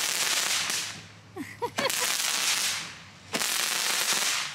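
A handheld Roman candle firing. Each shot starts suddenly and is followed by about a second of hissing from the burning charge, three times in a row, with short lulls between.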